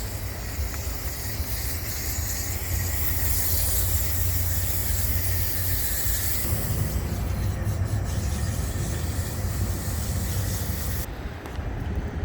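Coil cleaner hissing from a sprayer onto an air-conditioning condenser coil, over a heavy low rumble of wind on the microphone. The hiss is strongest through the middle and the high end drops away suddenly near the end.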